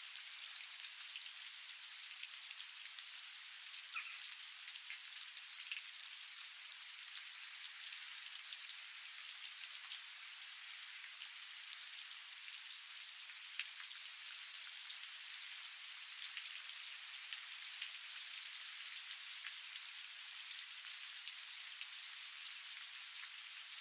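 Steady rain falling: a dense, even hiss with many individual drop ticks scattered through it.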